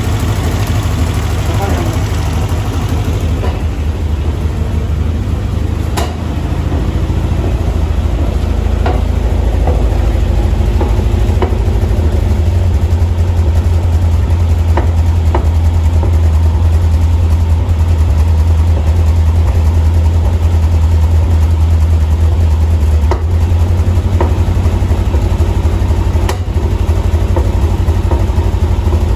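Toyota 3T-C 1.8-litre four-cylinder engine idling steadily in a swapped Corolla, with a few sharp clicks, the loudest about six seconds in.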